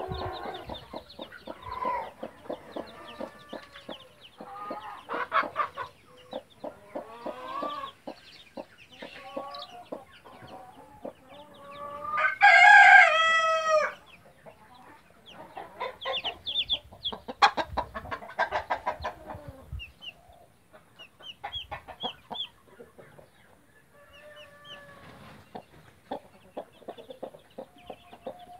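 Mother hen clucking in short repeated calls among her chicks, with the chicks' high, short peeps coming through in the second half. About twelve seconds in, a rooster crows once for about a second and a half, the loudest sound.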